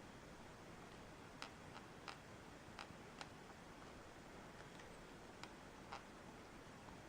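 About eight faint, short creaking clicks at irregular intervals from a new Canon BG-E7 battery grip, starting about a second and a half in. The owner questions whether this creaking is normal for a new grip.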